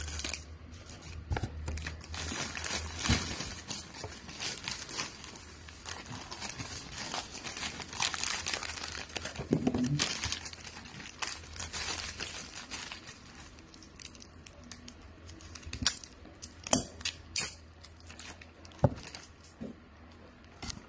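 Wrapping paper crinkling and rustling as a gift is wrapped by hand, with a few sharp snaps and clicks in the second half.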